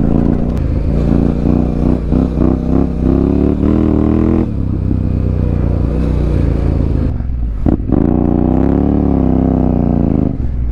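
Motorcycle engine running under way with the throttle opening and closing. Its pitch climbs through the first few seconds and drops sharply about halfway, dips briefly to nearly nothing a little later, then swells and falls again near the end.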